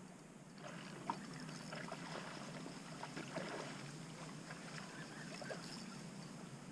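Faint splashing of water with a few small sharp clicks, as a hooked speckled trout is reeled in toward the bank.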